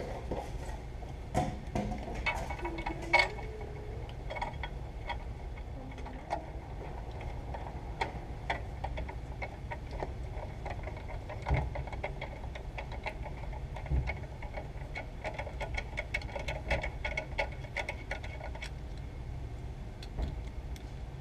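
Light metallic clicking and ticking of a socket and extension turning a clutch pressure plate's bolts by hand, in quick runs, over a steady low hum.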